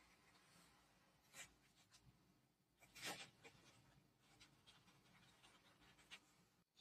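Faint rubbing and scratching of a fingertip and a small pad pressing a new paper label onto the painted tin hull of a toy submarine, in short strokes with the loudest scrape about three seconds in.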